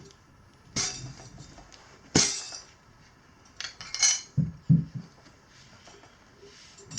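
Tire levers clinking and knocking against the wheel rim as the bead of a stiff knobby dirt-bike tire is worked on by hand: a handful of separate sharp metallic clinks, with a couple of duller thuds about four and a half seconds in.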